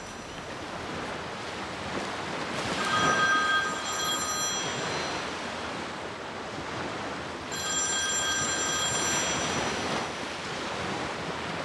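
A phone rings twice, each ring a bell-like chord of high steady tones lasting about two seconds, with a few seconds between rings, over the steady wash of surf breaking on the shore.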